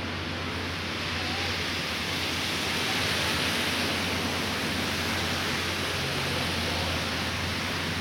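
An SUV driving past on a slush-covered street, its tyres hissing through the wet snow. The hiss swells to its loudest about three seconds in and then eases off, over a steady low hum.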